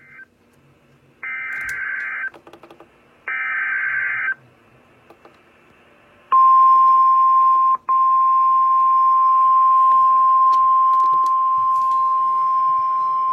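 NOAA Weather Radio alert signal. First come the short screeching data bursts of the digital SAME header: the end of one, then two more of about a second each. From about six seconds in, the steady 1050 Hz warning alarm tone sounds, with a brief break about a second and a half after it starts. Together they announce a new warning, here a severe thunderstorm warning, to weather-alert receivers.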